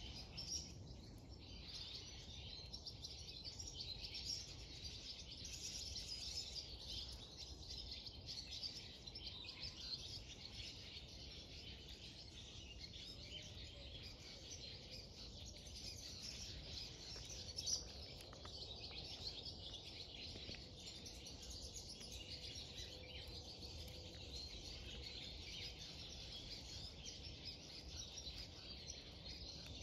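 Faint outdoor birdsong: many small birds chirping and singing at once, with a low background rumble. A single brief knock stands out about eighteen seconds in.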